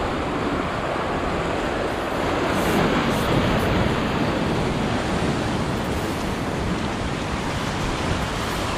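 Ocean surf breaking and washing over the rocky shoreline, swelling louder a few seconds in.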